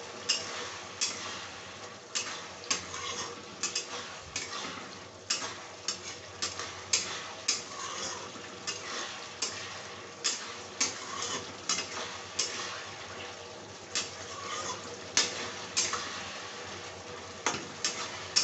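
Spatula stirring a simmering potato-and-parwal curry in an iron kadhai: irregular clinks and scrapes against the pan, about one or two a second, over a steady simmer.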